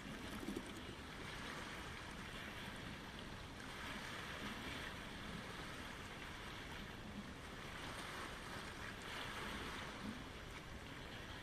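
Small waves washing in over a pebble shore, a steady wash of water that swells twice as waves break in.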